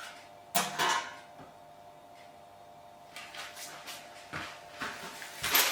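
Desk hardware being handled during assembly: a short, sharp clatter about half a second in, softer scuffing a few seconds later, and louder handling noise near the end.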